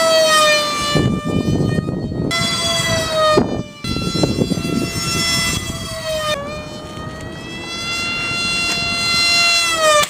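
Electric motor and propeller of a small RC plane whining in flight, the pitch sliding up and down with throttle and passes, over rushing wind noise. The sound drops out briefly about three and a half seconds in.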